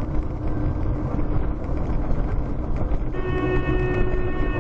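Car driving, with steady low road and engine rumble inside the cabin; about three seconds in, a car horn sounds and is held.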